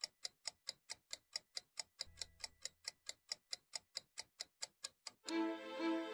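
Steady clockwork ticking, about four to five ticks a second. About five seconds in, orchestral string music comes in and covers the ticks.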